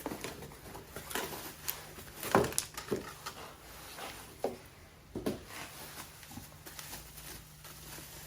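Scattered handling noises: a few light knocks and clicks with soft rustling as parts are picked up and turned over.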